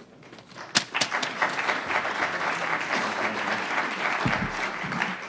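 Audience applauding, starting about a second in and thinning out near the end.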